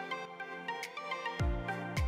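Electronic background music with sustained pitched notes; a deep bass drum beat comes in near the end.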